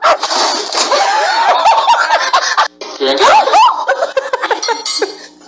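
People laughing and talking, with quick, bending high-pitched laughs. The sound drops out for a moment about halfway through, then more laughter and voices follow.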